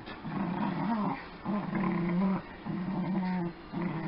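Dogs growling in rough play while wrestling over a plush toy: a run of low growls, each about a second long, one after another with short breaks.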